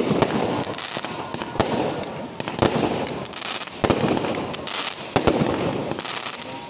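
Aerial fireworks shells bursting with several sharp bangs, roughly one a second, each followed by a dense crackling of the burning stars.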